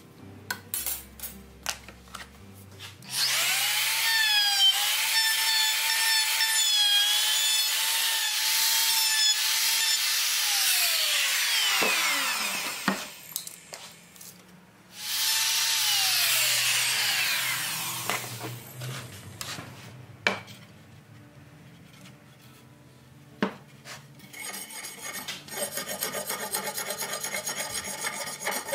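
Electric hand planer cutting a new wooden board. About three seconds in it spins up to a steady whine with cutting noise, holds for about eight seconds and winds down; a second, shorter run starts about fifteen seconds in. Near the end come quick, even rasping strokes of a hatchet blade across the wood, distressing the new board so it looks old.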